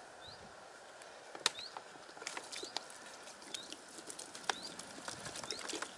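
Water poured from a plastic bottle pattering and splashing into a fabric carp cradle, with a sharp tap about a second and a half in and irregular small taps after. A bird repeats a short rising chirp about once a second throughout.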